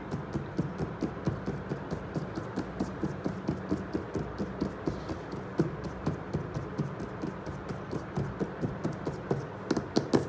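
Background music with a steady, fast beat over a low hum.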